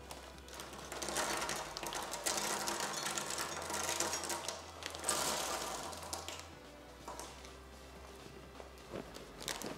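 Toasted almonds and small snack pieces poured from bags, clattering onto a hard tabletop: a dense rattle of many small pieces landing from about a second in to about six seconds, then a few scattered ticks.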